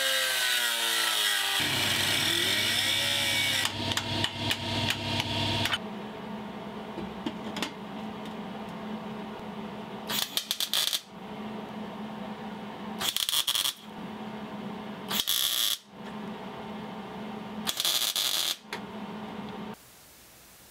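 Angle grinder grinding off the tack welds that hold a misaligned V-band flange to an exhaust muffler. It runs in one long pass of several seconds, then in four short bursts of about a second each over a steady lower hum.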